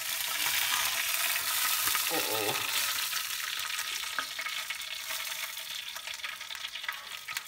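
Hot pork fat sizzling and crackling in a baking tin over charcoal, a dense hiss that dies down somewhat after about four seconds as the roast is lifted out of the tin.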